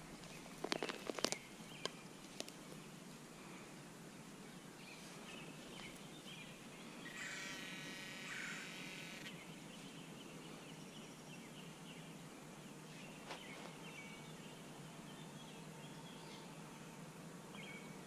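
Hand digger chopping and prying a plug of lawn soil: a quick cluster of sharp knocks and scrapes about a second in, with a couple of lighter ones just after. Then faint outdoor background with soft rustling as the loose dirt is sifted by hand, and a buzzy sound lasting about two seconds near the middle.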